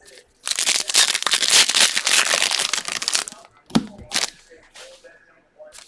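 Foil trading-card pack wrappers being torn open and crinkled by hand: a dense crinkling for about three seconds, then a couple of sharp snaps around the middle.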